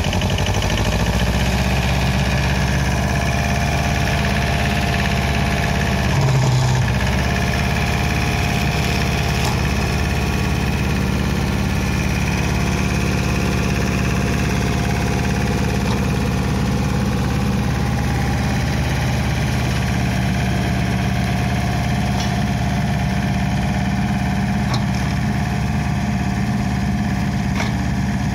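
Pasquali 997 30 hp tractor engine running steadily under load while driving an Agrimaster Yoyo flail mower through grass and brambles, with a brief surge about six seconds in.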